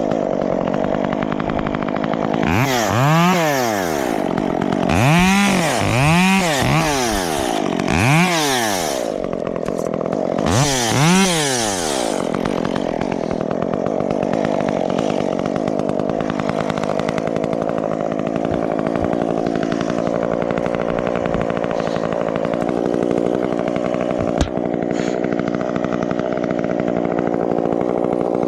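Chainsaw engine running, blipped up to high revs and back down in about five short bursts over the first twelve seconds or so, then running steadily at idle for the rest.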